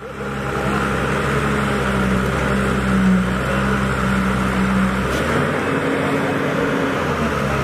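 Caterpillar tracked excavator's diesel engine running steadily under load as the arm digs mud from flood water, its note changing about five seconds in.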